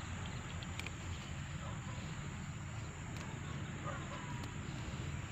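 Quiet handling of climbing bean vines while pods are picked by hand, with a few faint snaps or clicks, over a low steady rumble.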